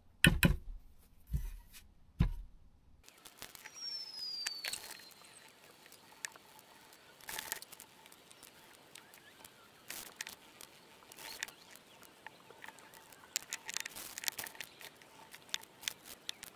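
Small hand-work sounds: three sharp knocks in the first two seconds, then scattered light clicks and short rustles. A faint falling whistle sounds once about four seconds in.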